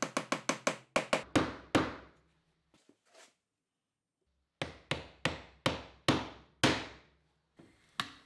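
A wooden mallet knocking wooden biscuits down into their glued slots in the apron boards. First comes a quick run of about ten sharp taps, slowing near the end. After a pause of a couple of seconds there are about six more strikes, roughly half a second apart.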